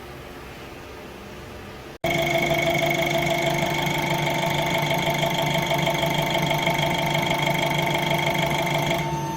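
Chevrolet 1.6 diesel engine running at a steady speed, with a steady whine over the engine note. It comes in abruptly and loud about two seconds in, after a quieter steady hum, and eases off near the end.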